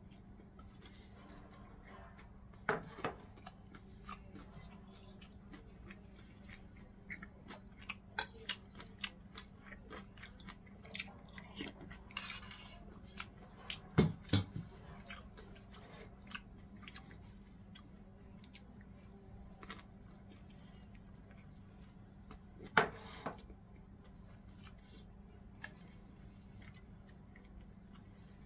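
Close-miked eating sounds of a person chewing gimbap, with scattered sharp clicks and a few louder knocks throughout, over a steady low hum.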